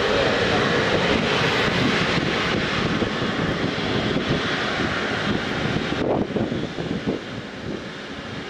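Boeing 777 freighter's GE90 turbofan engines running at taxi power as the aircraft rolls past, a steady jet rush and whine. About six seconds in, the highest hiss drops away suddenly and the sound falls somewhat quieter.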